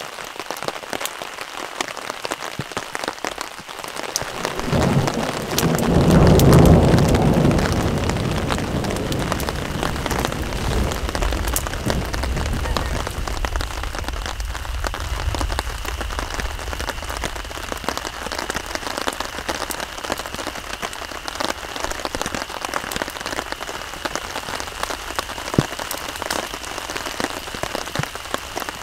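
Steady rain falling, with a rumble of thunder that builds about five seconds in, peaks a couple of seconds later and dies away over the next several seconds.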